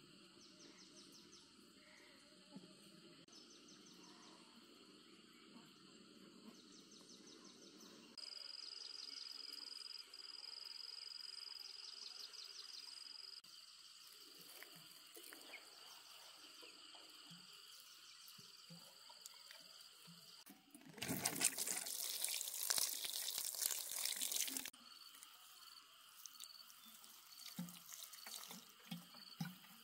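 Water running or splashing for about four seconds, a little over two-thirds of the way in, over a steady high buzzing of insects; a few light knocks and drips follow near the end.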